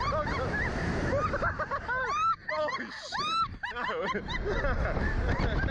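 A man and a woman laughing hard on a slingshot ride, with high-pitched squeals that rise and fall, over wind rumble on the microphone.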